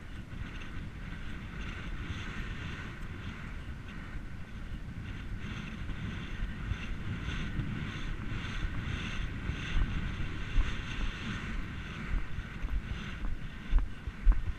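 Wind rushing over the microphone of a camera carried on a horse moving at speed, with a steady rhythmic beat of the horse's stride and tack. A few heavier thumps come near the end.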